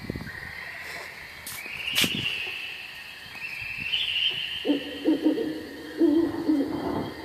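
Owl hooting, played as a spooky Halloween sound effect. Low hoots come in a run starting about two-thirds of the way in, over a steady high whistling tone that steps up in pitch, with a couple of sharp clicks early on.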